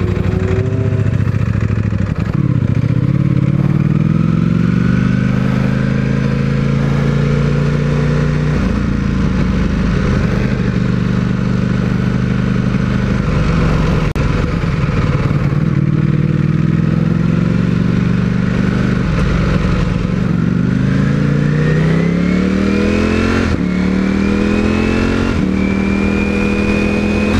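Sport motorcycle engine pulling away from a stop and accelerating, its pitch rising in each gear and dropping sharply at each upshift. It holds a steady speed through the middle, then accelerates again through two or three quick upshifts near the end.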